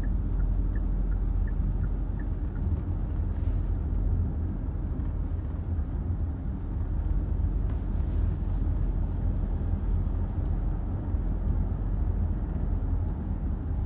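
Steady low rumble of a moving car, heard from inside the cabin: engine and road noise with no speech. A few faint ticks sound in the first two seconds.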